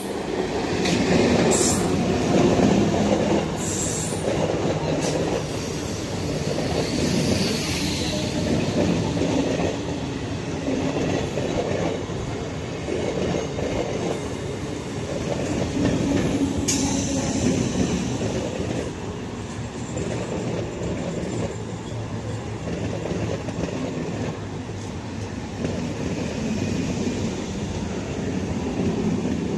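An Indian Railways train passing close by: a continuous rumble of steel wheels rolling on the rails. A few short, sharp high-pitched clicks come from the wheels, one of them about 17 seconds in.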